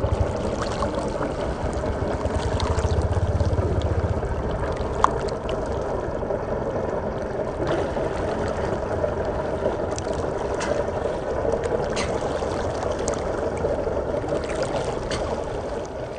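Reservoir water lapping and splashing at the shore, a steady wash with a low rumble under it and scattered small splashes, one sharper about five seconds in.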